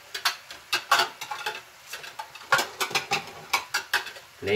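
Wooden spoon stirring sautéed bok choy in a stainless steel pot, giving irregular taps and scrapes against the metal in two bunches.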